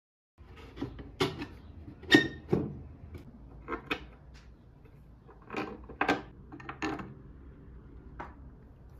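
Kitchenware being handled and set down: a series of separate clinks and knocks, the loudest about two seconds in with a brief ring.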